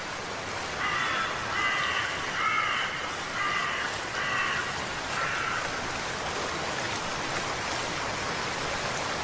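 A crow-like bird cawing about six times in the first half, over a steady hiss of water.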